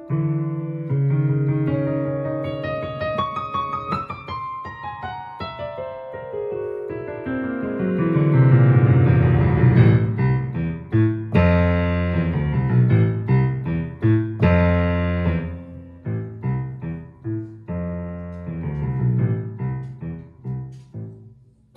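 Piano piece played on a digital stage keyboard with a piano sound: a descending run of notes, then chords and short detached notes over a low bass, ending in the low register.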